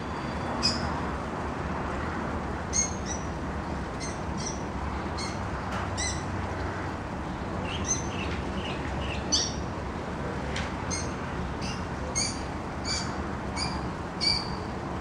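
Sunbird calling: many short, sharp chirps scattered throughout, with a quicker run of calls about eight seconds in, over a steady low background rumble.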